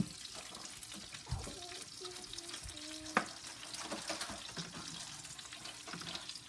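Chicken cutlets frying in hot oil in a pan, a steady sizzle with fine crackling. A few sharp knocks cut through it, the sharpest about three seconds in.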